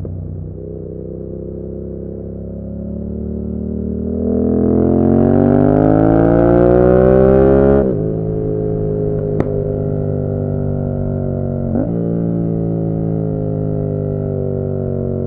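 Yamaha MT-07 parallel-twin engine through an SC Project Conic exhaust with the baffle out, accelerating under load with a steadily rising note, then dropping sharply in pitch about eight seconds in as it changes up, and running at a steady note after that with a brief dip in pitch near the end.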